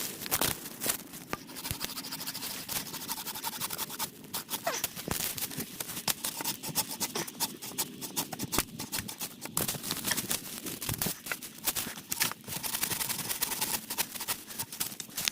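Continuous rasping, scratching and clicking of a hand tool working a green birch pole into a wooden handle, with many small sharp clicks.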